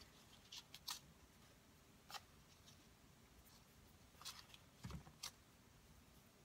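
Near silence with a few faint, brief rustles and ticks of cardstock and twine being handled while a knot is tied, and a soft thump about five seconds in.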